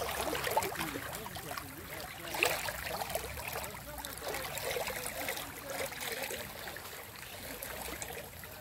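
Running water: a small stream babbling and trickling steadily.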